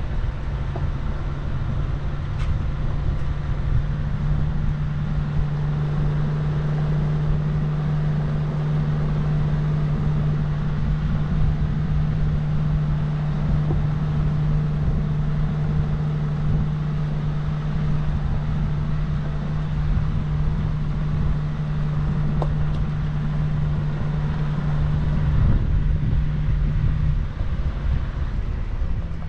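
4x4 vehicle's engine running steadily on the move, a constant low drone over rumble, its note shifting near the end.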